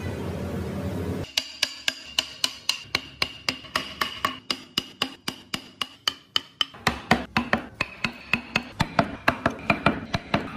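Carving chisel driven into hardwood by steady taps of a mallet or hammer, about three to four sharp taps a second, with a faint metallic ring. The taps start after about a second of rough noise.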